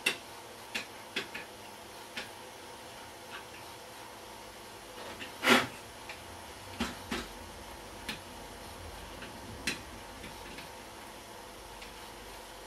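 Scattered clicks and small knocks of a screwdriver working on the plastic case of an HP dv9000 laptop, about ten in all, the loudest about five and a half seconds in, over a steady faint hum.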